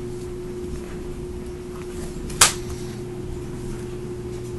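A steady low hum, with one short sharp snap about two and a half seconds in, as a plastic trade-binder page is turned.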